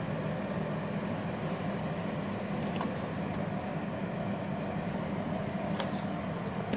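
MultiPro VRD MMA 400 A-MZ IGBT inverter welder switched on and idling, its cooling fan running with a steady hum, with a few faint clicks.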